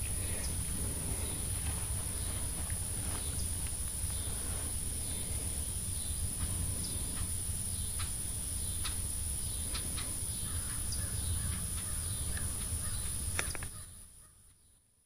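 Outdoor field ambience with a steady low rumble and scattered short, high animal calls, fading out to silence near the end.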